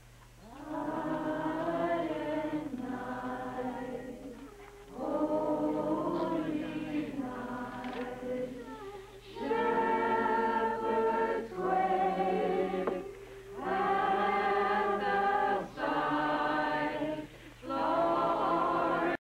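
A group of voices singing a slow Christmas carol together, in held phrases of about two seconds with short breaths between.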